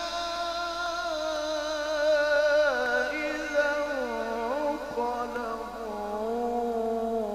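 A man's voice chanting Quranic recitation in the melodic mujawwad style, holding long ornamented notes that glide down and back up in pitch.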